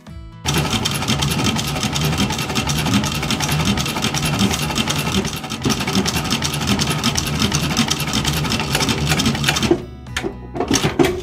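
TAKING TK-341N cylinder-bed industrial sewing machine stitching through leather at a fast, even rate. It starts about half a second in and stops about a second and a half before the end, followed by a few single stitches.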